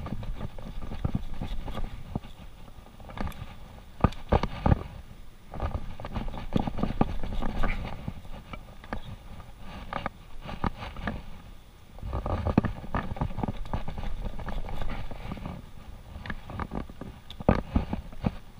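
Long chef's knife cutting raw beef short loin into thick strip steaks on a plastic cutting board: irregular knocks and scrapes of the knife and the meat against the board.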